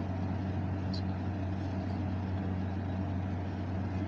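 A steady low hum, with a faint tick about a second in.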